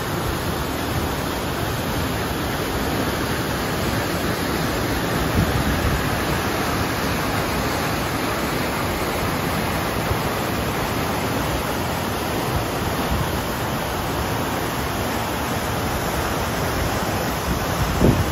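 River rapids rushing over rocks: a steady, even noise of fast whitewater, with a brief bump near the end.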